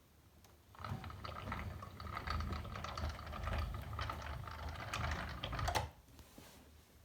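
Toy cars being cleaned by hand: a dense, irregular patter of small clicks and wet-sounding noise, starting about a second in and stopping about six seconds in.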